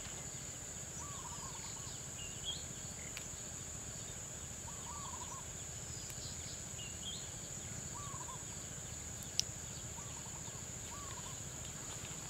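A steady high-pitched insect drone, with short bird calls repeating every few seconds and a single sharp click about nine seconds in.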